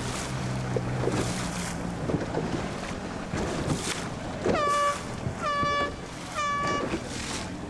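Three short horn blasts about a second apart, each rising briefly at its start and then holding one pitch, over steady wind and water noise and a low hum. Three sounds is the race committee's signal for abandoning a race, and the crew soon takes it that way, though they are not certain it wasn't shortened.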